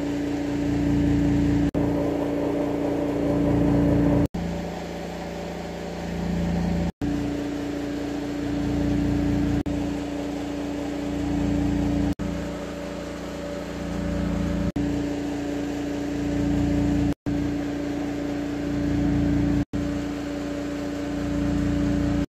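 A steady mechanical hum with a strong low tone, broken by brief silent gaps about every two and a half seconds.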